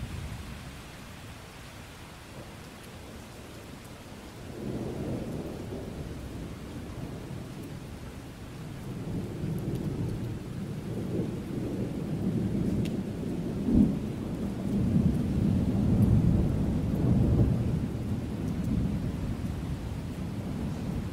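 Thunder rolling over steady rain. A low rumble swells about four seconds in and keeps building, with a sharp crack about halfway through and the loudest rolls soon after.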